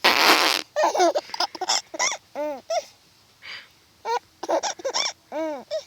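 Infant's voice: short breathy squeals and gasps in quick succession. A squeal rising and falling in pitch comes about halfway through and another near the end.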